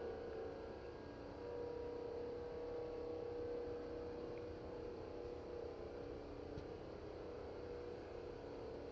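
Long, steady, trumpet-like drone of the kind reported as 'sky trumpets'. It holds one main note with fainter tones above and below it, and its source is unknown.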